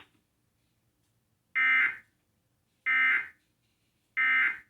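Emergency Alert System end-of-message signal: three short, identical digital data squawks about 1.3 s apart, the coded tones that mark the end of the alert.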